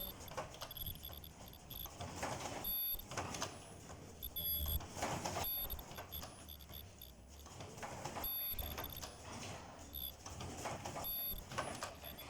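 Fully automatic face mask machine running through its cycle: repeated swells of air-like hiss every two to three seconds, with short high-pitched squeals or beeps recurring between them over a low running rumble.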